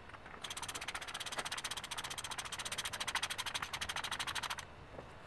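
Fast, even ratchet-like clicking, about twenty clicks a second, as the top cap of a Buell XB front fork is turned by hand; it starts about half a second in and stops after about four seconds.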